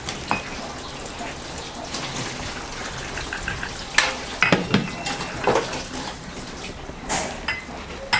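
Dishes and metal utensils clinking and knocking, a cluster of sharp clinks with brief ringing about halfway through, over a steady background hiss.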